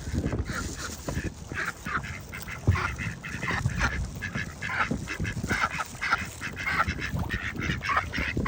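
Ducks quacking over and over in short calls, several close together, with a steady low rumble of wind on the microphone underneath.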